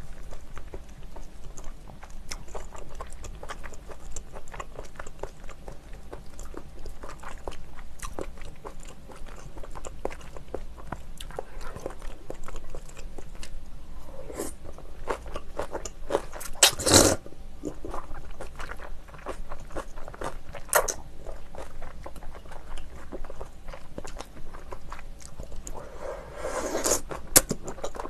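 Close-miked eating: chewing shellfish with many small wet mouth clicks and smacks. A single loud sharp noise comes about two-thirds of the way in, and a louder longer one near the end.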